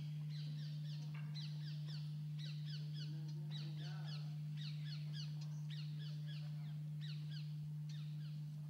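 Birds calling in a busy chorus of short, high, downward-sliding chirps, repeated in quick runs throughout, over a steady low hum.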